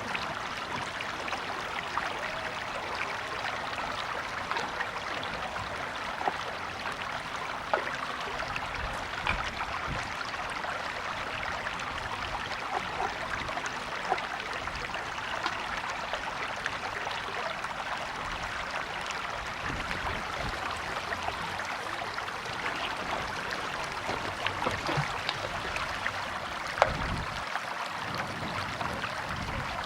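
Stream water running steadily over rocks, with a few sharper splashes scattered through.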